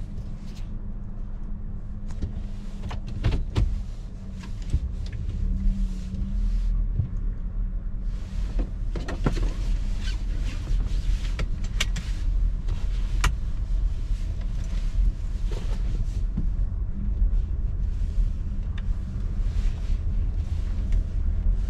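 Car engine heard from inside the cabin, idling with a steady low hum and then running a little harder as the car pulls away slowly. Scattered sharp clicks and knocks are heard over the first two-thirds.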